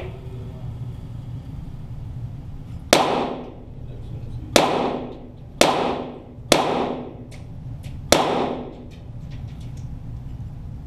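.22 Walther GSP target pistol shots: a sharp crack right at the start, then five shots at uneven intervals about a second or more apart, each echoing briefly in the range. Faint sharp ticks fall between and after the later shots.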